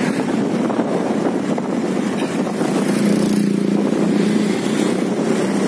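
Motorcycle being ridden along a street: a steady engine hum with wind rushing over the microphone, the hum clearest around the middle.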